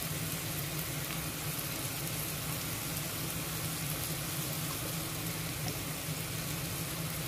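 Chicken and shrimp frying in a pan: a steady sizzle.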